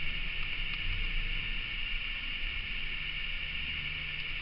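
Steady hiss with a low hum underneath, unchanging throughout: the recording's background noise, with no other distinct sound.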